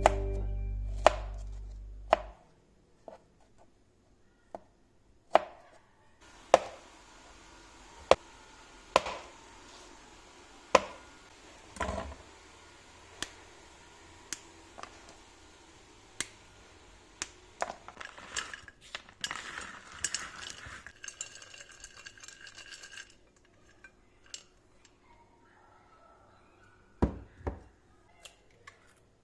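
Knife chopping on a cutting board in slow, single cuts, each a sharp knock about a second apart. A faint steady hiss runs under most of it.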